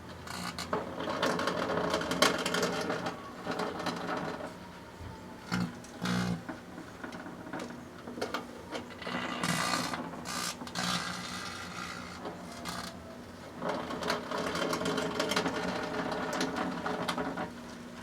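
Microwave oven running with a solar lantern burning inside it: crackling and popping in loud bursts over the oven's steady hum as the lantern's plastic and electronics catch fire.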